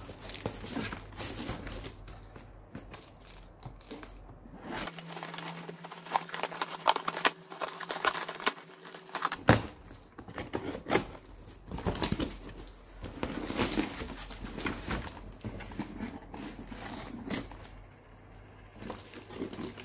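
Cardboard shipping box being opened with scissors: packing tape being cut and torn, with cardboard and paper crinkling and irregular sharp clicks and scrapes.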